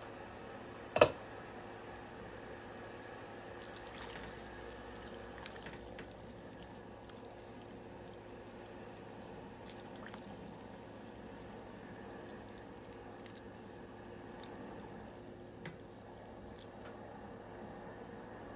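Covered pot of collard greens in water heating on a stovetop toward a boil, giving a faint steady hum with light watery sounds. A single sharp clank comes about a second in.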